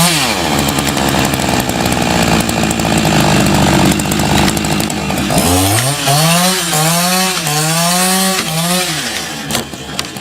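Chainsaw engine held at high speed for about five seconds, then revved up and down several times, dropping off near the end.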